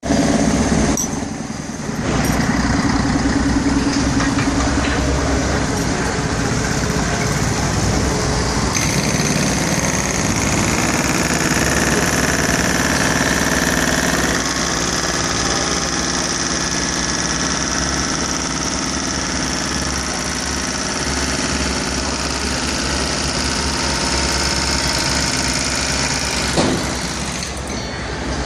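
Diesel engines of construction machinery (wheeled excavators and a loader) running steadily, with a high steady whine from about nine seconds in to near the end. An articulated bus goes by at the start.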